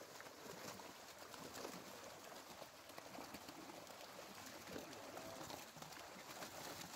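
Faint, continuous splashing of water from many fish thrashing at the surface inside a seine net drawn tight in a pond, a dense crackle of small splashes.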